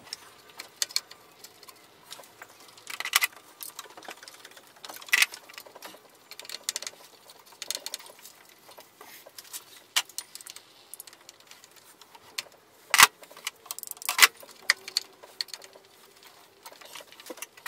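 Irregular metallic clicks and clinks of hand tools and bolts being handled on an engine block, with two sharper knocks late on.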